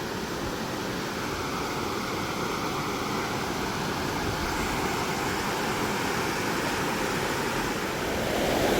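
Steady rushing of flowing water, an even hiss that gets slightly louder near the end.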